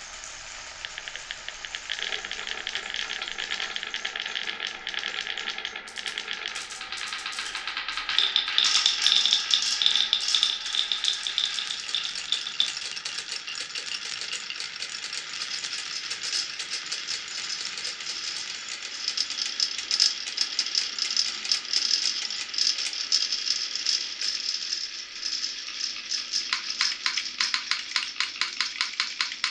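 Many glass marbles rolling and clattering through a wooden marble run, a dense stream of clicks and rattles. Near the end they settle into a quick, even run of clicks.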